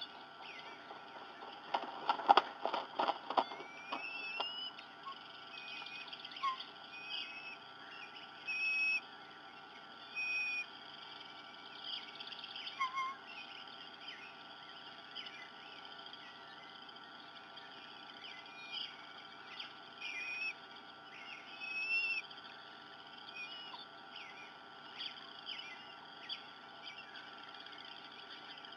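Birds calling: a quick loud run of sharp chirping notes about two seconds in, then scattered short chirps and whistles.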